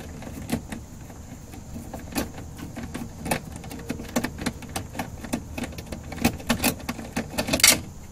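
Irregular metallic clicks and clinks from a hand tool turning the nuts that hold a power window motor to a car door's inner panel, a few a second, with a louder clink near the end.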